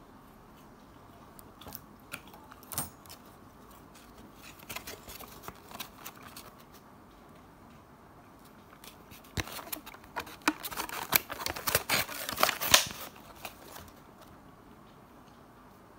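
Foam takeaway box being handled and closed, its lid creaking and clicking, with scattered clicks early on. A dense run of sharp crackles and clicks in the second half is the loudest part, as the box is squeezed and a rubber band is fitted around it.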